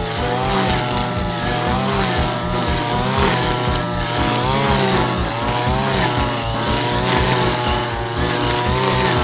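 Two-stroke brush cutter with a chain trimmer head cutting grass, the engine note rising and falling continually as the chain meets the grass, over a steady low pulse.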